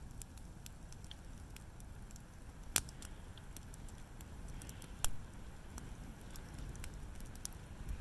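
Wood campfire burning and crackling, with small scattered pops and two sharper snaps about three and five seconds in, over a steady low rumble.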